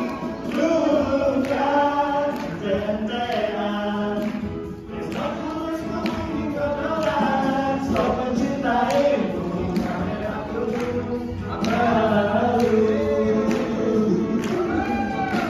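Group of male singers performing in close harmony through microphones, several voices overlapping, with a steady beat of sharp clicks about twice a second underneath.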